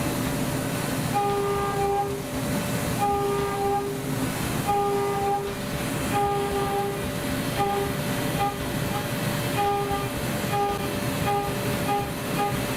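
5-axis CNC machine milling aluminium at high speed: a steady spindle whine, with a higher pitched cutting tone that sounds in repeated bursts of varying length every second or two as the end mill cuts.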